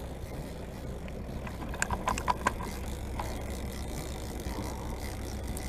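Steady low rumble of the boat, with a short run of sharp clicks about two seconds in and one more a second later from the big-game fishing reel as the angler cranks in a hooked fish.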